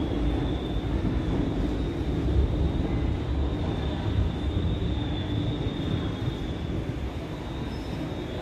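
Class 350 Desiro electric multiple unit moving slowly into the platform, its running gear giving a steady low rumble, with a faint steady high whine throughout.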